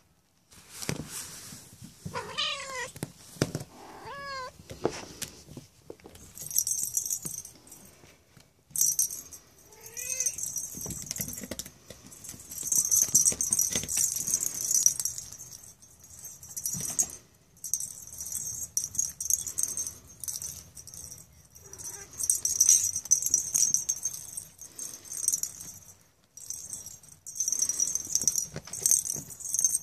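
Cornish rex kitten meowing in a run of short calls in the first few seconds, with another short meow about ten seconds in. From about six seconds on, the bell inside a plastic lattice cat ball jingles in repeated bursts as the kittens bat the ball about.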